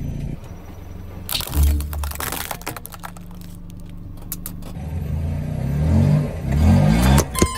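A car tyre rolling over and crushing brittle objects: a quick run of sharp snapping and cracking crunches about one to three seconds in, over the low rumble of the car, which grows louder in pulses near the end.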